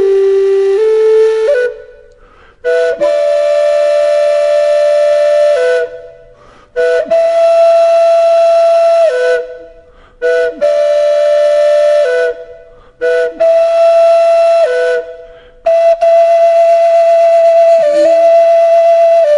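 Solo flute music: a slow melody of long held notes in phrases of two to three seconds, each mostly on one note that steps down at its end, with short pauses between phrases.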